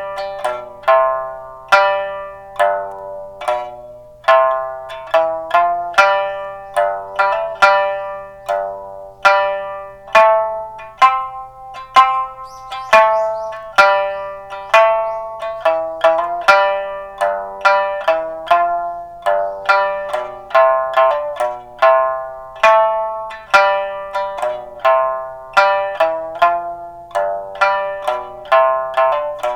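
Instrumental passage of a song: a plucked string instrument picks out a melody in quick single notes, each ringing and fading.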